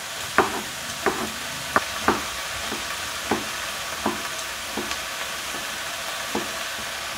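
Chef's knife slicing a zucchini into thin slices on a wooden cutting board, the blade knocking on the board about every two-thirds of a second. Under it, the steady sizzle of vegetables frying in a pot.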